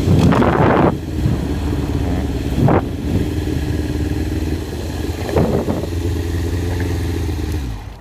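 Yamaha YZF-R6 inline-four engine running at low revs as the bike rolls along and stops, with short rises in revs at the start, near three seconds and about five and a half seconds in. The engine cuts off just before the end.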